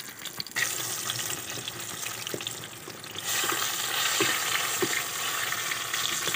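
A battered chicken leg piece deep-frying in hot oil in a steel karahi, sizzling steadily and growing louder about three seconds in.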